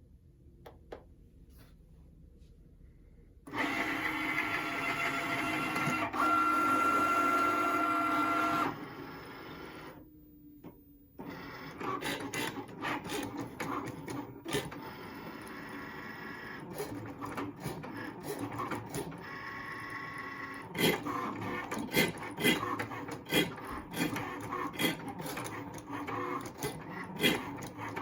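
Cricut Maker cutting machine running. From a few seconds in its motors give a steady whir with a high whine. After a short lull it runs unevenly with many sharp clicks and knocks as it moves. The owner reports a grinding noise from this new machine when the blade is near the middle.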